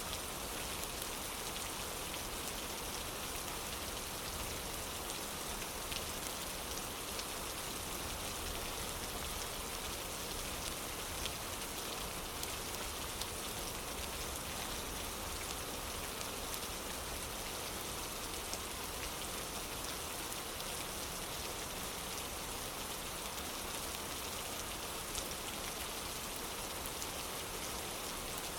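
Steady rain falling: an even hiss, with a few scattered sharp ticks.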